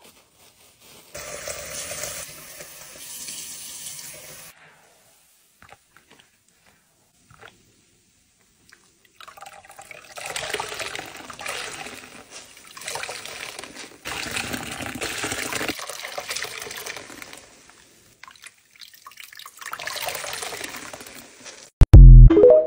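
A saturated sponge soaked with soapy water is squeezed over a sink of water about five times, each squeeze a rush of water pouring and splashing out, with quiet gaps between. It ends with a short, very loud rising electronic tone: the TikTok end-card sound.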